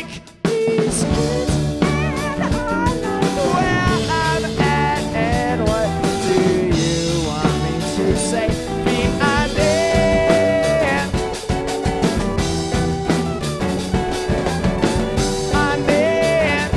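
Indie rock band playing a song live, full band with drums and guitar, which cuts out for a split second just at the start before coming straight back in.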